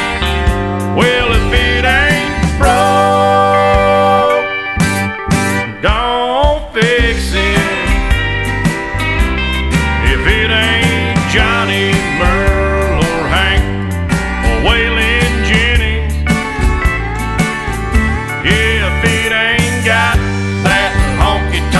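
Country song playing, an instrumental passage with a lead line that bends in pitch over bass and a steady drumbeat.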